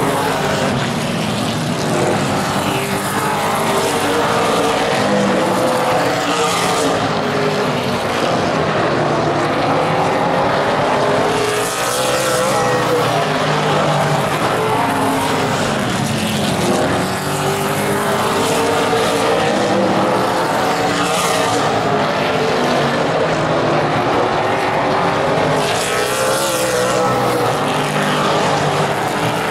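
A pack of super late model stock cars racing, many V8 engines running hard at once on a short oval, with cars passing by several times.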